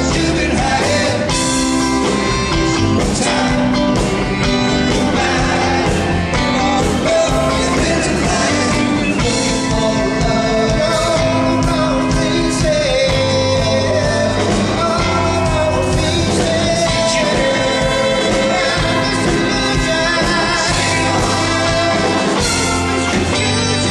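A rock band playing live, with a lead singer over guitar, bass and drums at a steady beat.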